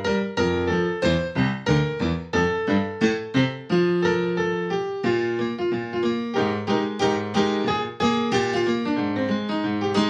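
Background keyboard music in a piano sound: a melody of struck notes over chords, several notes a second, each fading after it is struck.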